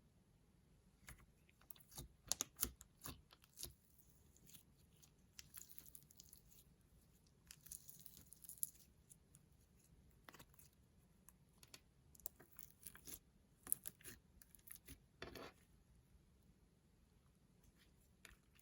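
Clear slime being worked by hand, giving soft irregular sticky clicks and pops, with a couple of brief crackly hisses near the middle.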